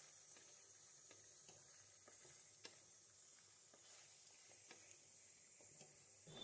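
Faint sizzle of chicken pieces frying in oil in a kadhai on high flame, with scattered small crackles and one sharper pop a little before the halfway point.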